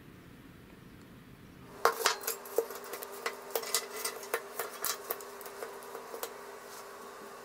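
Kitchen knives clinking and knocking against each other and a plastic pipe as they are put into a bamboo-skewer knife holder. A quick, irregular run of sharp clicks starts about two seconds in, the first the loudest.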